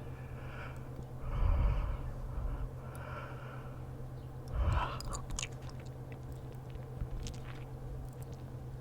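Close-miked human breathing and mouth sounds. Slow, breathy breaths run through the first three seconds, a short louder breath comes about halfway, and then small soft mouth clicks follow.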